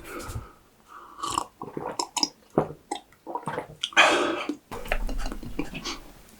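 Close-miked wet chewing, biting and mouth smacks of eating spicy buldak steak, with irregular clicks and one longer, louder burst about four seconds in.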